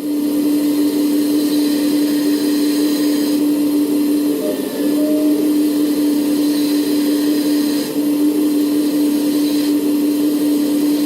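Servonaut SMB sound module in an RC Komatsu PC490 excavator model playing a steady excavator engine drone through its speaker, with a hissing hydraulic swoosh as the boom comes down. The hiss comes in about two seconds in for a second or so, and again for several seconds from about six seconds in.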